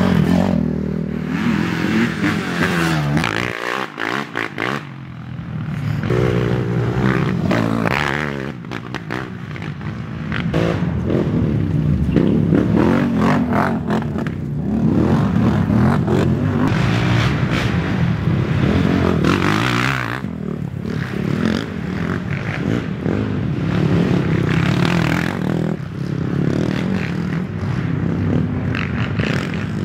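Racing ATV engines revving hard, their pitch repeatedly climbing and falling as they accelerate and shift, with rattling and scraping mixed in. The sound drops away briefly about four seconds in.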